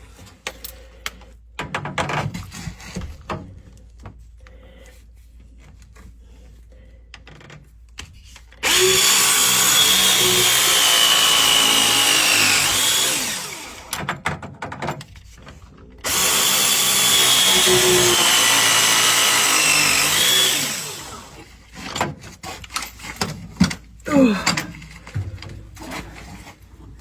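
Battery-powered hydraulic pipe press tool, of the kind used on copper pipe fittings, running two press cycles of about four seconds each. Its motor whine dips in pitch just before each cycle ends. Scattered knocks and handling clatter come before and after.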